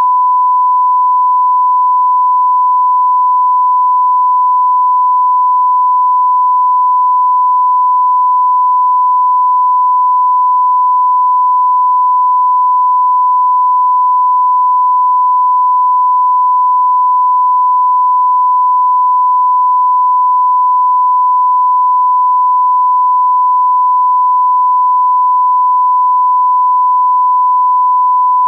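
Loud, steady broadcast line-up test tone played with colour bars: a single pure tone held without a break, the reference signal that leads into a programme tape.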